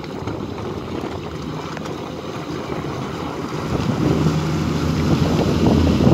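Wind buffeting the microphone over harbour ambience, with a low boat-engine hum that grows louder in the second half.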